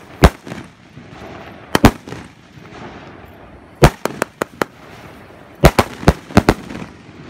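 Sonic Boom 25-shot consumer fireworks cake firing: shells launch and burst overhead as a run of sharp bangs, coming singly and in quick clusters of two to five with short gaps between.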